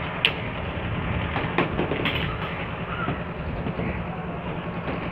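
Steady low rumble of outdoor work-site noise, with a few short sharp knocks: one about a quarter second in, two more around one and a half to two seconds in.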